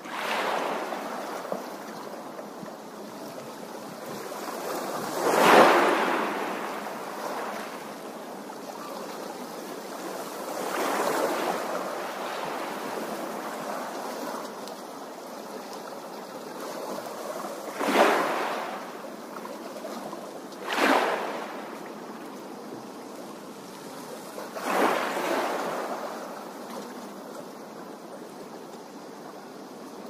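Small waves splashing onto a shore of rounded stones: about six separate washes, each a brief swell of splashing, the loudest about five seconds in, with a soft steady wash of water between them.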